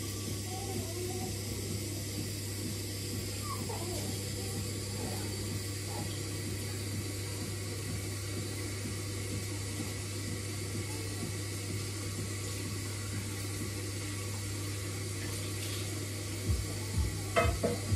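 Washing up at a kitchen sink: water running and dishes being handled, over a steady low hum. Near the end a music track with a regular thumping beat comes in.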